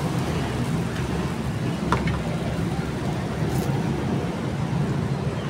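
Steady low rumble of road traffic, with a couple of faint clicks.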